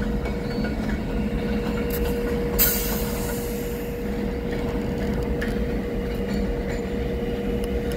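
CN local freight train moving slowly through a rail yard: a cut of covered hopper cars rolling with diesel locomotives, a steady low rumble with a held high tone. A brief sharp high-pitched noise comes about two and a half seconds in.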